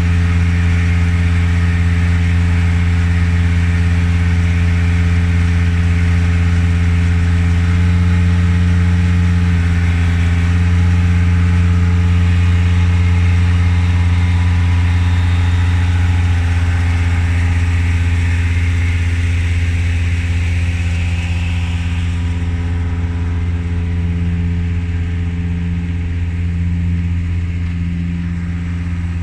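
Engine running steadily with a strong low hum. A higher hiss on top fades away about three-quarters of the way through.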